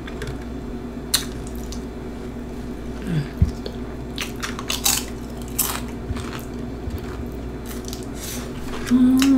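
Crunchy Flamin' Hot Cheetos nachos being broken apart and picked up by hand off a plate, with scattered light crackles and clicks, then a bite taken about eight seconds in. A short hummed sound near the end.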